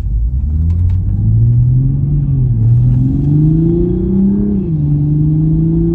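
Toyota GR Supra's B58 3.0-litre turbocharged straight-six accelerating, heard from inside the cabin, with its open-element intake letting more intake and turbo sound through. The engine note rises, dips at a gear change about two seconds in, climbs again, then drops sharply at a second shift near the end and settles to a steady cruise.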